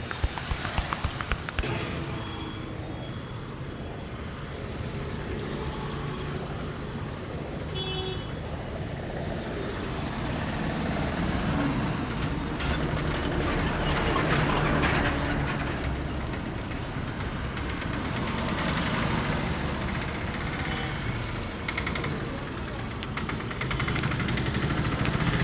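Street traffic noise: vehicles running and passing, swelling about halfway through, with a short horn toot about eight seconds in. Near the start, a quick run of sharp taps.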